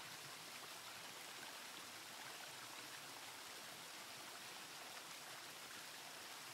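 Faint, steady rush of a waterfall.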